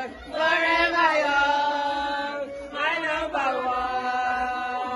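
Violin played slowly: two long held notes, each sliding up into its pitch about half a second in and again near the middle.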